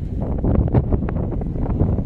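Wind buffeting the microphone: a loud, uneven low rumble that gusts and flutters.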